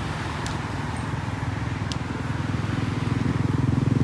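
An engine running with a fast, even pulsing beat, growing steadily louder as it approaches.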